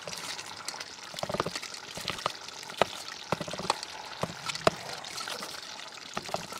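Plastic spatula cutting through set polenta in a rice cooker's inner pot: soft wet squishes and irregular light taps as the blade presses down to the bottom of the pot.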